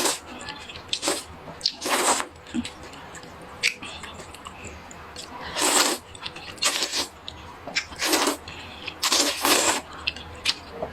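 Rice noodles being slurped up in several short, breathy slurps, with quieter chewing between them.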